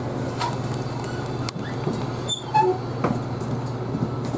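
Isuzu Erga Hybrid city bus standing at a stop, its steady low hum running, with a few sharp clicks and knocks and a brief run of short high tones a little past halfway.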